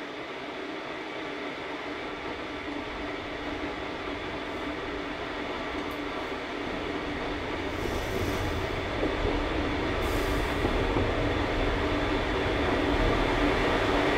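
A droning, rumbling noise made of several steady tones, swelling louder throughout, with a deep rumble joining about three seconds in: a film sound-design drone for a noise that torments the woman clutching her head.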